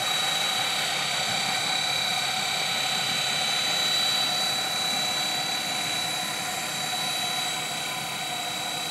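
Align T-Rex 600 radio-controlled helicopter hovering and flying low, its rotors and drive giving a steady high whine over rotor wash. The sound eases slightly in loudness near the end.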